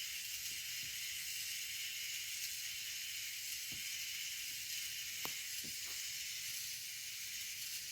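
Small electric motor of a K'nex crane's slewing drive, heavily geared down, running steadily with a high hiss and a few faint clicks from the gears as it slowly turns the boom.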